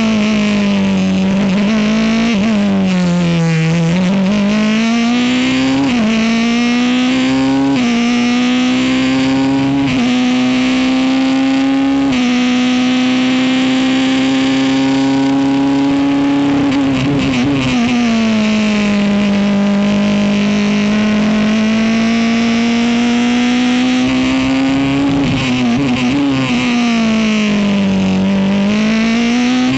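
Ligier racing car's Honda engine driven hard on a lap: the engine note climbs and drops sharply at each upshift, several in quick succession, then holds steady at high revs. Twice the pitch falls away and climbs back as the car slows for a corner and accelerates out.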